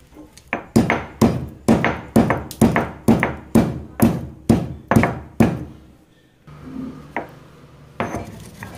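Stone pestle pounding black peppercorns and green cardamom pods in a stone mortar: a steady run of hard strikes, about two a second, then a short pause and a few lighter strikes near the end. The spices are being crushed to a coarse grind.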